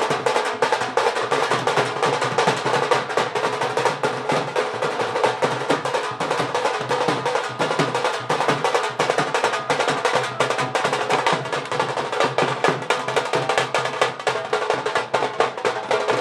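A drum played in a fast, steady beat for street dancing.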